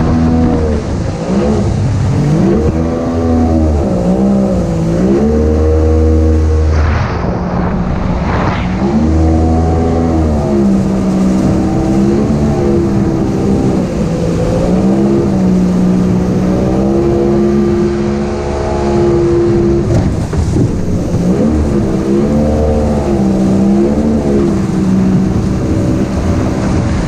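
Outboard jet boat engine running under way, its revs rising and falling again and again with the throttle as the boat works up a shallow river. A brief burst of rushing noise comes about seven to nine seconds in.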